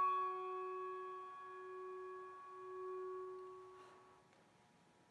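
A struck bell ringing out and slowly fading, its low tone wavering gently, dying away about four seconds in.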